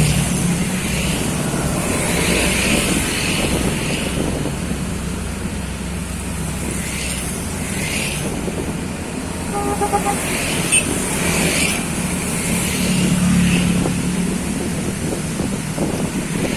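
Large bus engine running steadily amid road traffic noise, with a short horn toot about ten seconds in.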